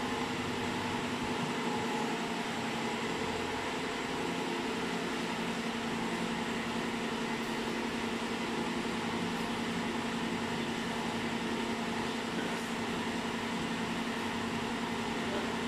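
Steady mechanical hum of running workshop machinery: a constant low drone with a fixed tone over an even hiss.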